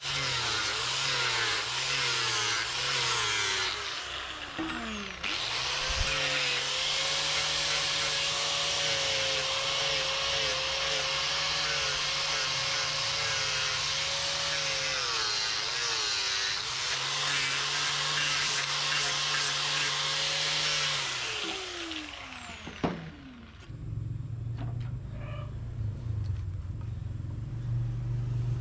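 Electric grinder running on steel, a steady grinding hiss over a wavering motor whine, switched off about 21 seconds in and spinning down.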